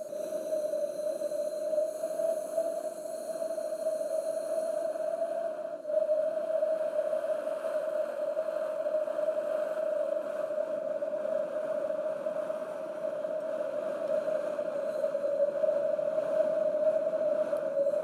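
Wind sound effect: wind blowing steadily with a constant whistling tone over a rushing hiss. It breaks off for an instant about six seconds in and comes back a little louder.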